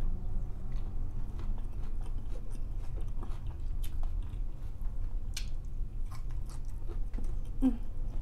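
A person chewing a mouthful of crunchy meatless burger, with small scattered clicks of the mouth, over a steady low hum.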